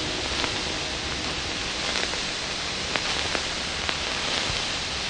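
Steady rain falling: an even hiss with a few sharp drip ticks scattered through it.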